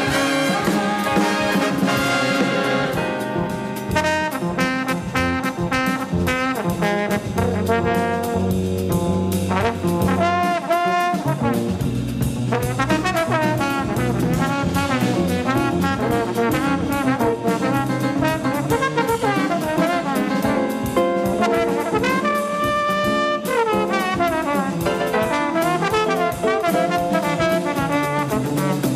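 Jazz big band playing in full ensemble, with trumpets and trombones to the fore over a steady rhythmic pulse.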